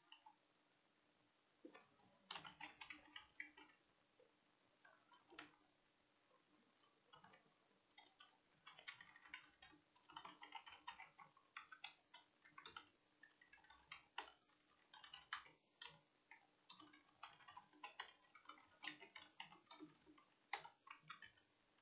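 Faint computer keyboard typing: irregular runs of keystrokes with short pauses, starting about two seconds in, over a faint steady hum.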